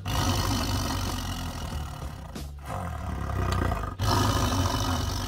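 Tiger roaring, three long, rough roars in a row, the first the longest.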